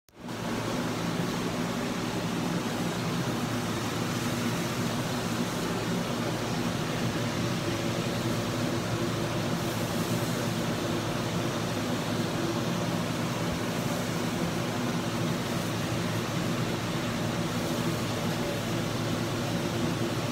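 Salmon fillets frying in butter in a pan on a gas burner, a steady hiss over a steady low hum.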